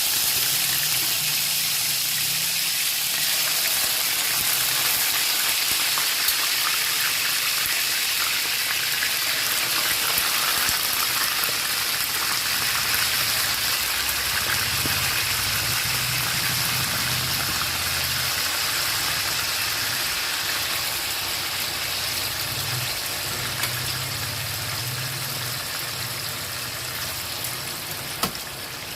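Marinated chicken pieces frying in hot oil in a pan: a steady sizzle that eases slightly near the end.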